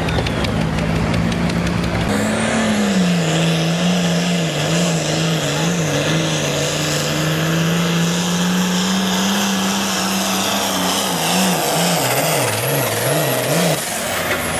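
Turbocharged diesel pulling tractor running at full throttle under heavy load as it drags a weight-transfer sled. Its engine note wavers, then rises and falls about twice a second near the end.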